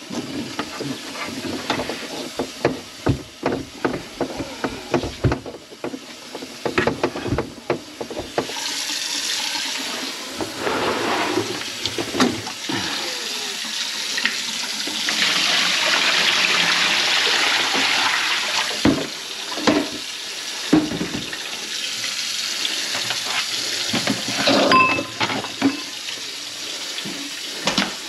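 Water running from a tap into a kitchen sink, steady for about fifteen seconds from roughly a third of the way in. Before it comes a run of sharp knocks and clatter, and a few more knocks follow near the end.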